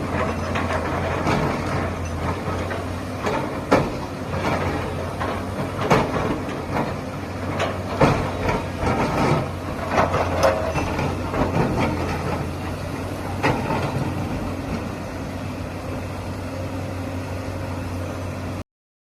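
Excavator's diesel engine running steadily, with sharp knocks and clanks every couple of seconds. The sound stops abruptly near the end.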